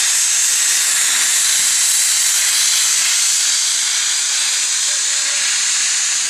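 Loud, steady hiss of steam venting from an LNER A4 Pacific steam locomotive, easing slightly in the last couple of seconds.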